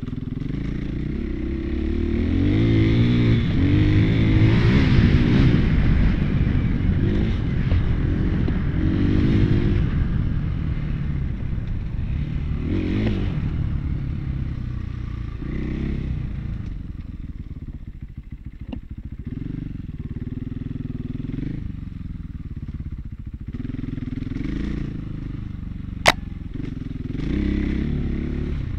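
2017 KTM 450 EXC-F Six Days dirt bike's single-cylinder four-stroke engine running while being ridden, its pitch rising and falling over and over as the throttle opens and closes. A single sharp knock sounds about 26 seconds in.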